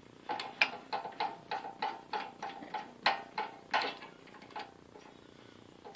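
Light metallic clicking, about three or four clicks a second, each with a short ring. It comes from a steel keyway broach being worked by hand in the bore of an aluminium pulley, and the clicking stops a little over halfway through.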